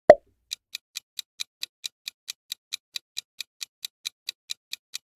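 A countdown-timer sound effect ticking evenly, about four to five ticks a second. It is set off by one short, loud transition hit just after the start.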